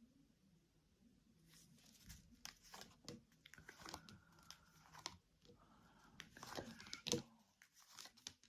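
Faint rustling, crinkling and light clicking of tarot cards being handled and laid out, in irregular bursts starting about a second and a half in.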